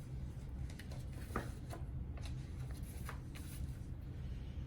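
Paper rustling in a string of short, crisp crackles as the pages of a picture book are handled and turned, over a low steady hum.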